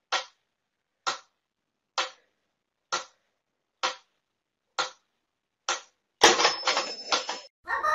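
Pendulum metronome ticking steadily, a little more than once a second, seven times, followed near the end by a louder clatter with a thin high ring lasting about a second.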